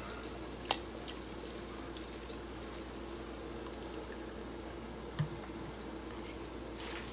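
Cooking oil poured from a plastic bottle into a pot of boiling water, over a steady low hiss, with two short clicks, one about a second in and one about five seconds in.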